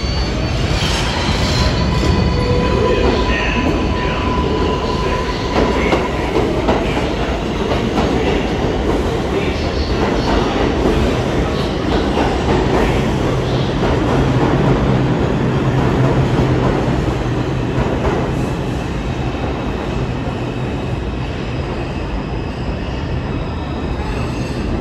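New York City subway train, an R142, pulling into the station and slowing to a stop along the platform: a loud, steady rumble of wheels on rail with some wheel squeal, and a steady whine during the first few seconds.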